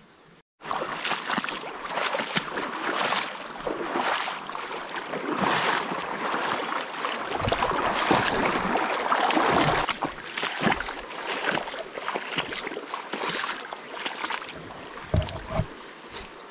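Legs wading through a shallow river, water splashing and sloshing with each stride. It starts suddenly about half a second in, is loudest around the middle, and eases to a softer, patchier splashing over the last few seconds.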